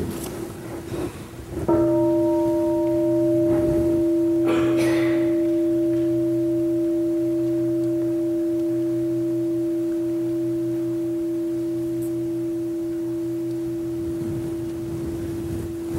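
Large bowl-shaped Buddhist temple bell: first a soft touch, then a full strike about two seconds in. The bell rings with a steady low hum and fades slowly over the next dozen seconds.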